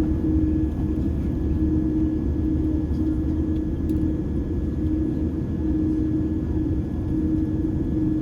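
Jet airliner taxiing: a steady low rumble of the engines at taxi power, with a hum that comes and goes and a faint steady high whine.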